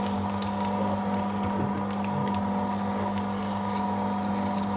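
Electric paper shredder running steadily, its motor humming at a constant pitch as its cutters chew through a continuous strip of thermal-print ECG paper, with a rustling, crinkling noise from the paper.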